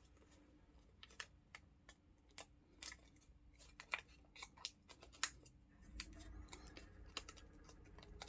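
Faint, scattered crinkles and small sharp clicks of a sheet of origami colour paper being folded, creased and a flap tucked inside.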